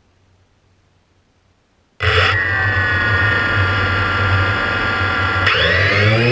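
Near silence, then about two seconds in a DJI Phantom quadcopter's motors start abruptly and run with a steady whine. Near the end several whining tones rise together as the motors spin up.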